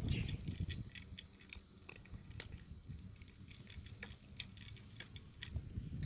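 Cat crunching dry kibble: a quick, irregular run of sharp crunches.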